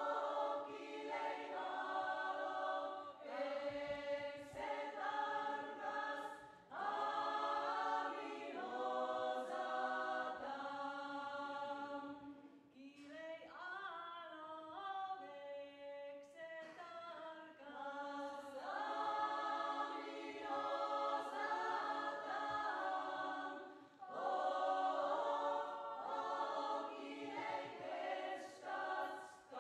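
Women's choir singing a cappella. Partway through, the singing drops to a softer stretch of sliding, gliding voices for a few seconds before the full choir comes back in.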